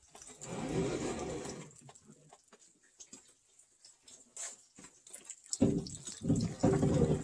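Heavy squared timber beams handled on a wooden stack: a long scraping slide of wood over wood in the first second or two, then several dull knocks near the end as a beam is bumped and set down on the pile.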